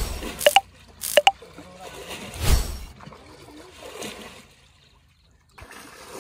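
Muddy water sloshing and dribbling as hands grope through shallow mud and water for fish, with a louder splash about two and a half seconds in. A few short high blips sound in the first second and a half.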